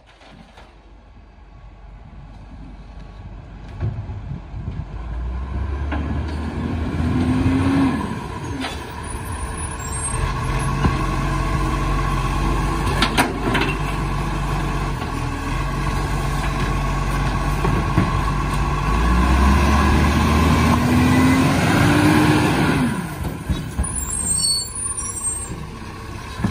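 Iveco side-loader garbage truck's diesel engine drawing up, then revving and holding high to drive the hydraulic lifting arm as it grabs, lifts and tips a wheelie bin. The arm's whine rises and falls twice, with a couple of sharp knocks in the middle as the bin is emptied. The engine drops back near the end.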